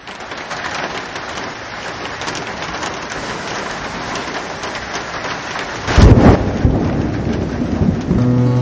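Steady rain falling, with a loud rumble of thunder about six seconds in. Music with held notes comes in near the end.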